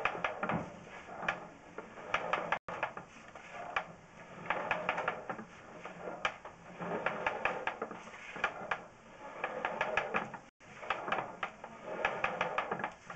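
Sewer inspection camera's push cable being pulled back out of the drain line and onto its reel: bursts of rapid clicking and rattling, in repeated pulls about every one to two seconds.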